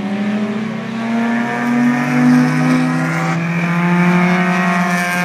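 Two race cars passing close together, their engines running hard at high revs. One engine's pitch rises steadily and then changes abruptly about three seconds in.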